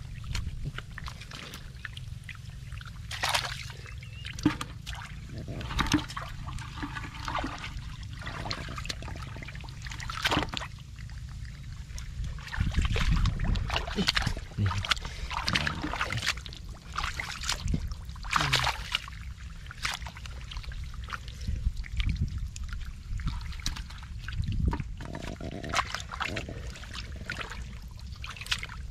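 Hands digging and groping in wet mud and shallow water: irregular squelches, splashes and wet slaps, with dripping and trickling water, over a steady low rumble.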